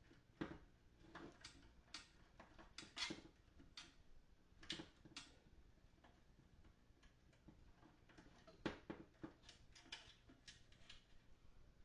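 Scattered light clicks and taps of small parts and tools being handled while fitting components back into a guitar amplifier's chassis, a few sharper ones standing out among faint handling noise.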